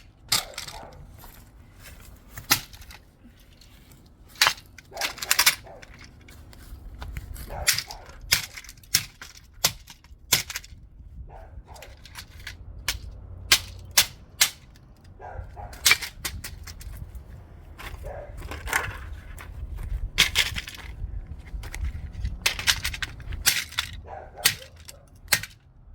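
Hammer blows on a plastic digital alarm clock: sharp, irregular strikes, some in quick runs, with pauses between.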